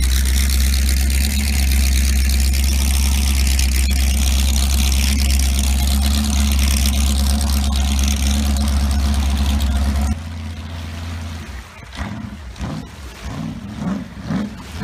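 Jet boat's exposed inboard engine idling with a loud, steady low rumble. About ten seconds in the sound drops off abruptly, and then the engine revs in several rising and falling bursts as the boat takes off.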